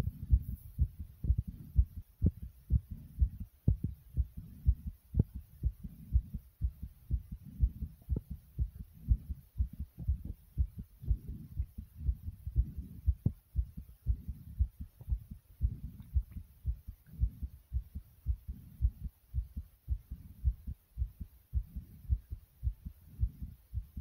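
A person's heart beating very quickly: a fast, even run of low thuds.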